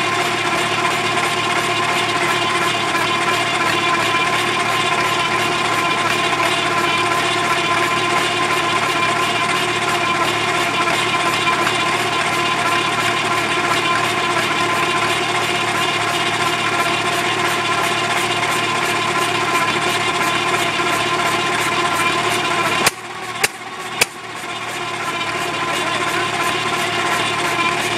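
1.5 hp Sattley hit-and-miss engine being turned over by a V-belt from a tractor: a steady, whining mechanical drone of belt, pulleys and engines. About 23 seconds in the sound drops sharply, two sharp clicks follow, and it builds back up over the next couple of seconds.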